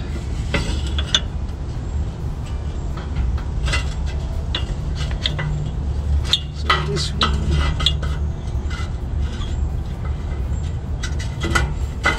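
Metal clinks, knocks and scrapes of the exhaust clamp and pipe being handled and fitted by hand, in irregular clusters. A steady low hum runs underneath.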